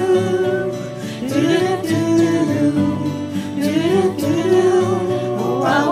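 Several voices singing the wordless "doo-doo-doo" hook in repeated short phrases over an instrumental backing.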